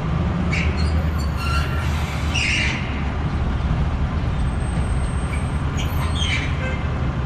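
A truck engine idling with a steady low drone. A few brief higher-pitched noises rise over it, about half a second in, around two and a half seconds in, and again about six seconds in.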